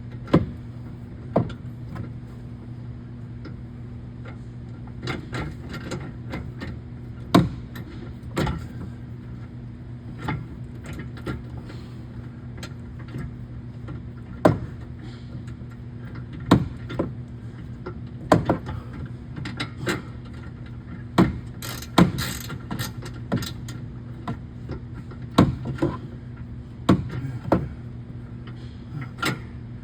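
Hand tools working on a steel latch bracket: irregular sharp metal clicks and knocks, roughly one every second or two with a quick cluster near the end, over a steady low hum.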